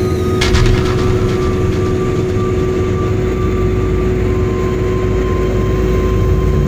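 Road vehicle driving at speed, heard from inside the cabin: steady engine and tyre rumble with a constant drone. A single sharp knock comes about half a second in.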